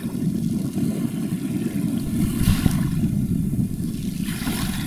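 Wind buffeting the microphone with a low, uneven rumble, over the wash of water from the passing container feeder ship, which hisses up briefly about halfway through and again near the end.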